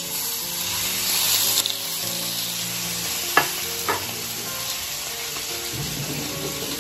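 Sliced, pre-boiled pork belly sizzling in hot oil in a wok. The sizzle starts suddenly and is loudest for the first second and a half as the slices hit the oil, then settles to a steady sizzle as the fat begins to render. Two sharp knocks about half a second apart come near the middle.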